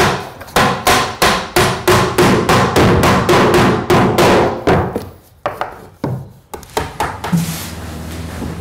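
Hammer driving nails into wooden floorboards: a fast, even run of blows, about three a second, each with a short ringing. The run stops about five seconds in, a few more strikes follow, and then a steadier noise.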